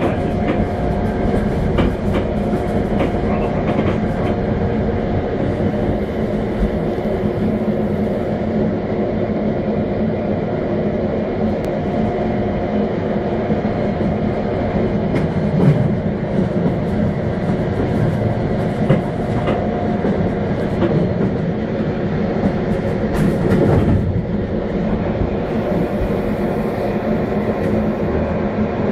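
Electric passenger train running along the track: steady rolling noise with a hum and wheel clatter, and a few louder knocks around halfway and near the end.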